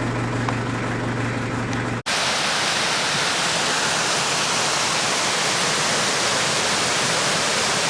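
A vehicle engine idles with a steady low hum for about two seconds, then the sound cuts off suddenly and a waterfall's steady, even rush takes over, louder than the engine.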